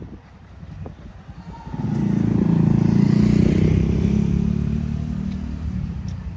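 A motor vehicle passing close by: its engine sound swells up about two seconds in, is loudest in the middle, and fades away toward the end.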